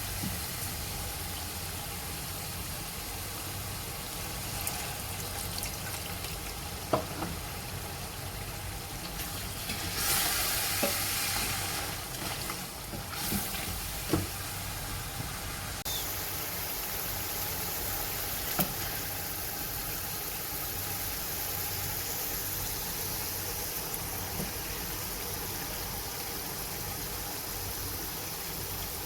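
Mutton frying and sizzling in a pot as it is stirred, with a few sharp knocks against the pot. About ten seconds in, the hiss briefly grows louder.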